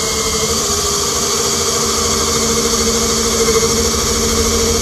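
Cordless drill running steadily under load as it bores an angled, freehand pocket hole into a 2x2 wooden stud.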